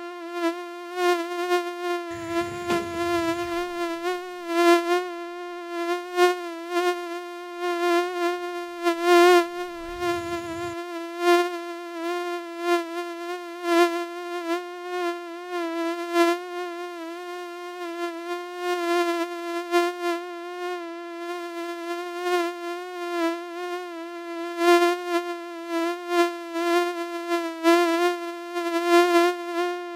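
Mosquito in flight: the steady whine of its wingbeat, rich in overtones, wavering slightly in pitch and repeatedly swelling and fading in loudness.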